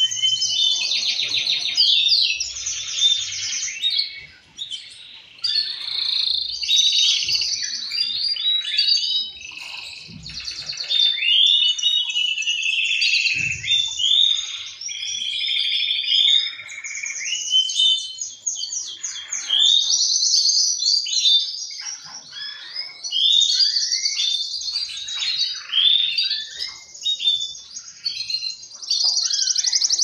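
Male canaries singing: long runs of fast trills and rolling warbles, with other males answering and overlapping almost without pause, and a short lull about four seconds in.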